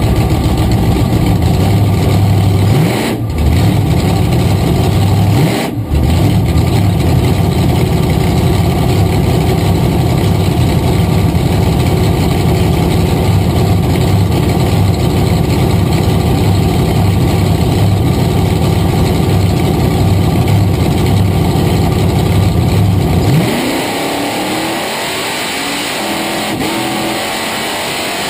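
Supercharged AA/GS drag car engine running loudly at the starting line, dipping and picking back up twice in quick throttle blips about 3 and 6 seconds in. About 23 seconds in it goes to full throttle at the launch, its pitch climbing as the car pulls away.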